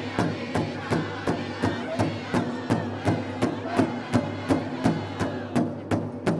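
Powwow drum group singing together over one large shared drum struck in unison with drumsticks in a steady beat, about three strokes a second. Men's and women's voices sing in chorus, and the singing drops out briefly near the end while the drumbeat carries on.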